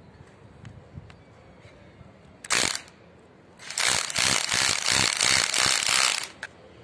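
INGCO electric hammer drill boring into a wall: a short burst of drilling about two and a half seconds in, then a longer run of about two and a half seconds, with a fast pulsing rattle.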